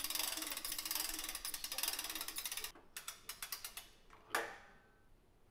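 Hand-cranked winch on a lift stand ratcheting as it is cranked: a fast run of clicks, then slower separate clicks, then a single knock a little over four seconds in.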